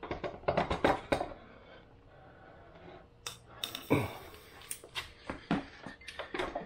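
Short metallic clicks and knocks as a Udor pressure-washer pump with its gear drive is slid onto a Honda IGX800 engine's shaft and seated against the engine. There is a quick run of clicks at first, then another run from about three seconds in.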